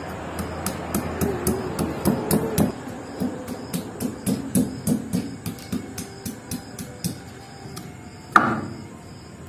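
Stone pestle pounding fresh ginger on a flat stone grinding slab (sil-batta): a steady run of dull stone-on-stone knocks, about three a second, with one louder, sharper knock near the end.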